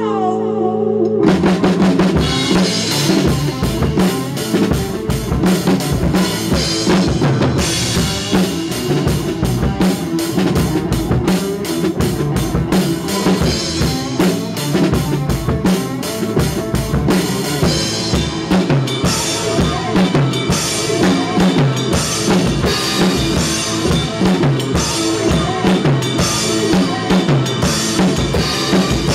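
A drum kit played hard in a rock groove: the drums come in about a second in, then steady, busy bass drum and snare strokes with cymbals run on.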